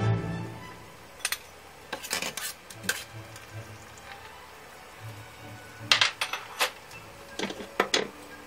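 Stainless-steel mesh skimmer clinking and knocking against a stainless-steel pot as blanched king oyster mushrooms are scooped out of boiling water. The sharp metal clinks come in irregular clusters, the loudest about six seconds in.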